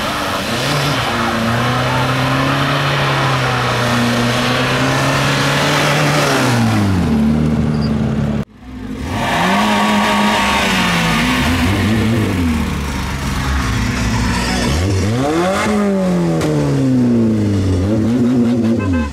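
Car engine held at high revs in a burnout, with a hiss of tyre noise, its note falling away about eight seconds in. Then, after a cut, another car engine is revved up and down several times.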